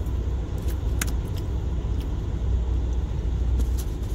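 Steady low rumble of a semi truck's diesel engine idling, heard inside the cab, with a few light clicks over it.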